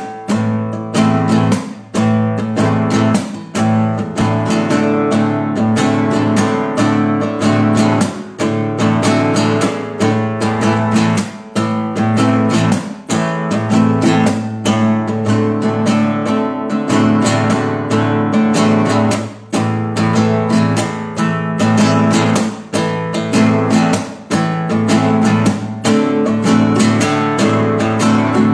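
Acoustic guitar (violão) playing an original piece, strummed chords in a steady rhythm.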